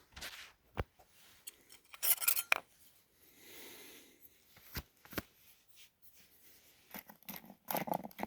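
A few sharp clicks with short scrapes and crinkles of a freeze-dried food pouch and water bottle being handled, the rustling busier near the end.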